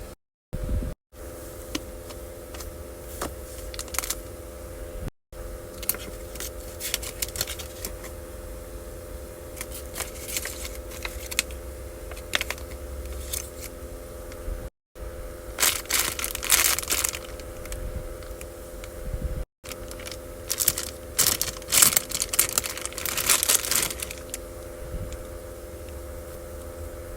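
Plastic packaging crinkling and tearing as a capsule toy is unwrapped, in irregular bursts of crackle and clicks that are loudest in two spells past the middle, over a steady low hum.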